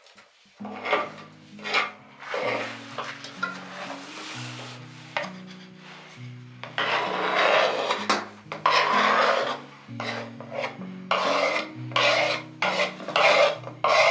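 Food being grated by hand on a metal grater, in repeated rasping strokes that come closer together in the second half.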